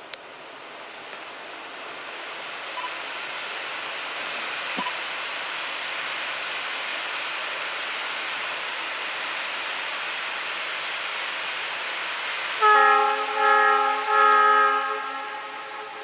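Steam locomotive approaching unseen: a steady rushing noise slowly grows louder, then its chime steam whistle sounds a chord of several notes in three blasts near the end, the last the longest.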